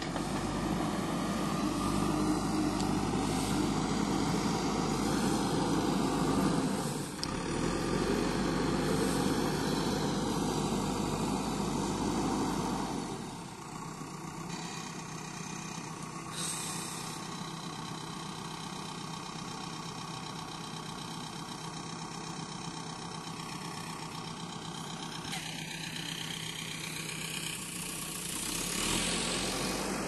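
JCB 3DX backhoe loader's diesel engine running under load for the first dozen seconds, then settling to a lower, quieter steady note about thirteen seconds in, rising again briefly near the end.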